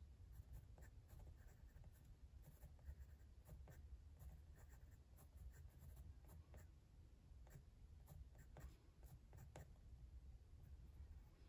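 Faint scratching of a graphite pencil sketching on watercolor paper, in many short, irregular strokes.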